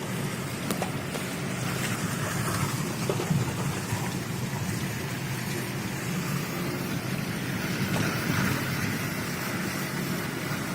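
Steady running noise of a road vehicle on the move, with rain falling.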